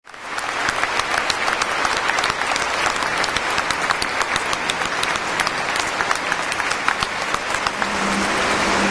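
A crowd applauding: dense, steady clapping by many people, thinning near the end as a low steady hum comes in.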